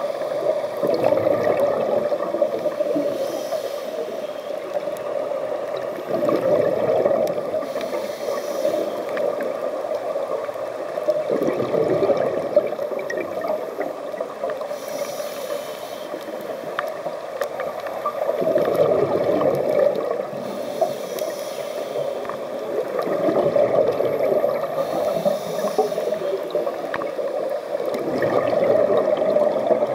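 Scuba diver breathing through a regulator, heard underwater: a hiss on each inhale alternates with a gurgling rush of exhaled bubbles, in a slow rhythm of about one breath every five seconds.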